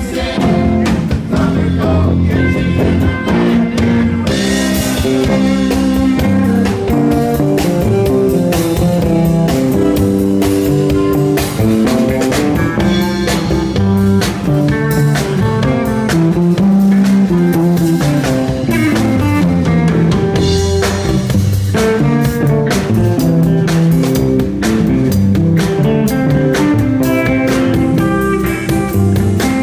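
Live rock band playing an instrumental jam: an electric guitar lead over electric bass and a drum kit.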